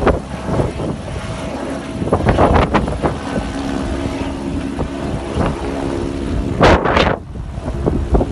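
Helicopter flying overhead with its rotor and turbine running steadily. Loud rushing gusts hit the microphone about two seconds in and again near the end.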